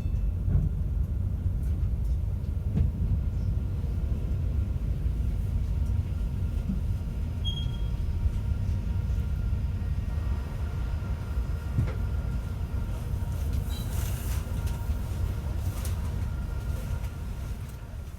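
Interior running noise of a Class 390 Pendolino electric train, heard from a seat above the traction motors: a steady low rumble with occasional knocks from the track. Faint steady tones from the traction equipment come in about halfway through, and the sound fades out near the end.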